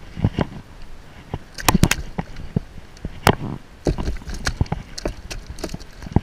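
Irregular knocks and clicks, some in quick clusters, from fly line and gear being handled against a small boat's hull.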